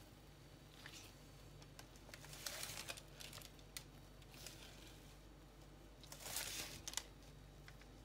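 Faint swishing and scraping of a metal spatula spreading whipped cream across a sponge cake layer, with two longer strokes about two and a half and six and a half seconds in and a few light clicks.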